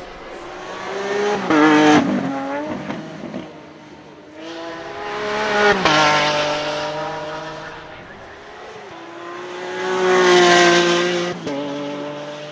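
Lamborghini Centenario Roadster's naturally aspirated V12 accelerating hard past, three times: each run climbs in pitch and drops abruptly at a gear change, about two, six and ten seconds in.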